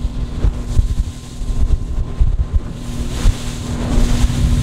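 Fishing boat's outboard motor running steadily under way, with heavy wind buffeting the microphone.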